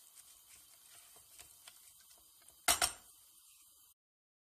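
Chopped onions frying in olive oil in a granite-coated pan with a faint sizzle, stirred with a silicone spatula that scrapes and clicks lightly against the pan. About three seconds in comes a loud double knock, and shortly after the sound cuts off suddenly.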